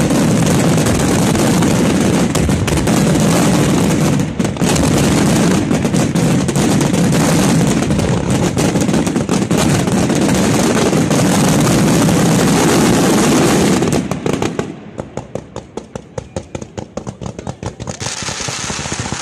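Fireworks display: a dense, unbroken barrage of shell bursts and crackling for about fourteen seconds. It then thins to rapid separate pops and crackles, and swells into a dense barrage again near the end.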